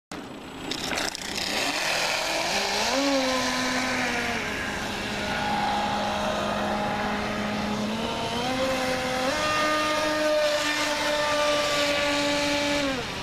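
Pro Boat Shockwave 26 RC speedboat's brushless motor whining at speed, its pitch rising and falling with the throttle: up about three seconds in, down a second later, up again around eight and nine seconds in, and dropping near the end. It runs over a steady hiss.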